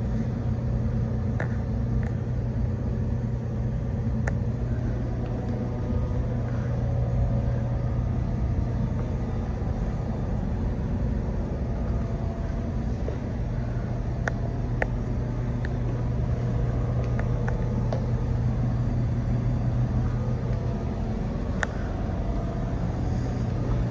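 Steady low hum and rumble, with a few faint clicks scattered through.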